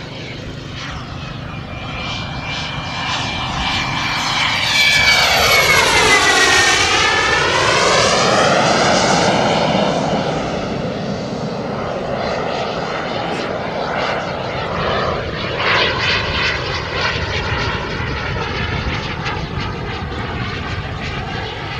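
Radio-controlled model jet flying past: a high engine whine with many overtones swoops down in pitch as the jet goes by, loudest a quarter of the way in. After that it settles into a steadier, fainter engine sound as the jet flies on.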